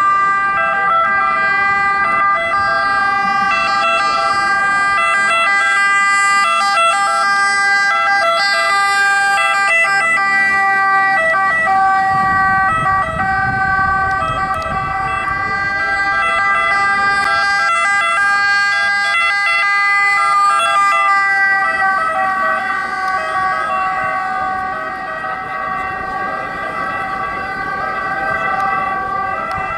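Ambulance siren sounding continuously. The ambulance's engine and tyres are heard as it passes close, about twelve to fifteen seconds in, and the siren's pitch dips slightly a few seconds later.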